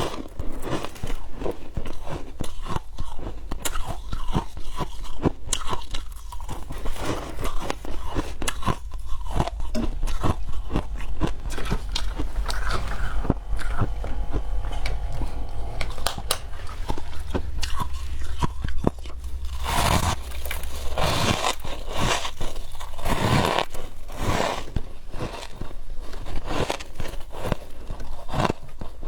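Biting and chewing chunks of frost: a dense, irregular run of crisp crunches, with a few louder bites about two-thirds of the way through.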